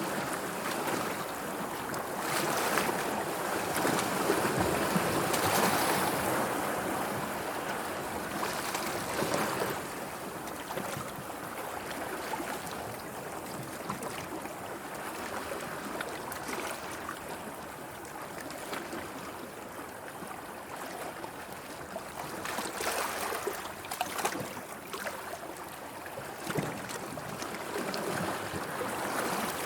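Sea waves washing and lapping, a steady wash of water that swells louder near the start and again about two thirds of the way through.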